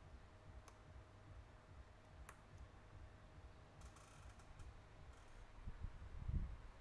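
Faint clicks and a brief light rustle of small tools and phone parts being handled during a phone repair, with a low bump near the end.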